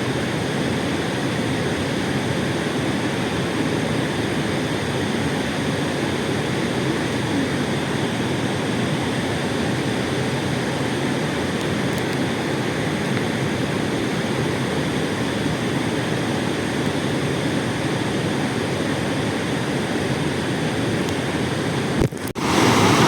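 Rushing river water, a steady even rush. It drops out briefly about a second before the end and comes back louder.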